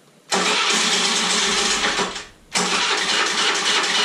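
Honda Activa 110's single-cylinder four-stroke engine being started on the electric starter in two bursts: the first lasts about two seconds and stops, and the second starts again a moment later. The idle is set low, so the engine does not keep running.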